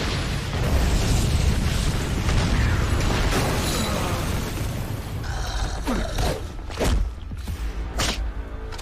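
Animated fight soundtrack: background music under a heavy rumbling crash that fills the first few seconds, then a handful of sharp hits about a second apart in the second half.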